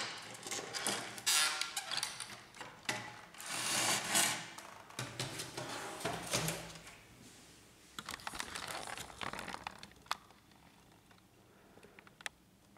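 Plastic scanner housing of a Canon inkjet multifunction printer being pried apart by hand: irregular clicks of tabs releasing and scraping of plastic parts as the glass top comes off. The handling dies down about halfway through, leaving a few faint clicks near the end.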